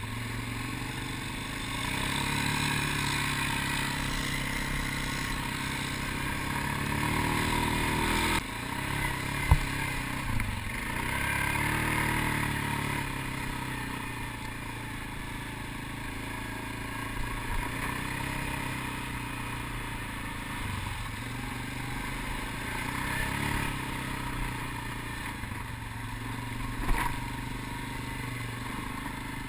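ATV engine running under way, its revs rising and falling with the throttle, with a couple of sharp knocks along the way.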